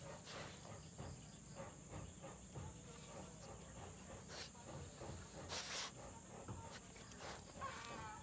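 A dog digging in loose soil with its front paws, quick irregular scrapes and scatters of dirt, one louder scrape about five and a half seconds in. Behind it a steady high-pitched insect chorus of crickets.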